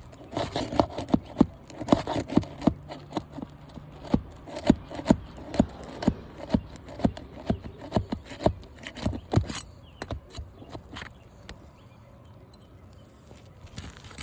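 Quick, irregular knocks and scrapes of a tool working on asphalt roof shingles, lifting them to pry out nails. The knocking stops about nine and a half seconds in, leaving only faint scraping.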